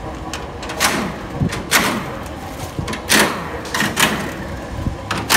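Pneumatic impact wrench undoing the bolts of a steel motorcycle shipping crate, running in several short bursts with the pitch falling as it spins down.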